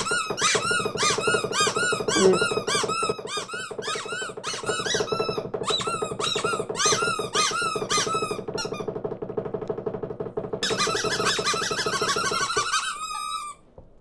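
Foley imitation of small cartoon birds' cries: repeated squeaky chirps, about three a second, over a steady low drone. Near the end they turn into a dense, rapid flurry that cuts off suddenly.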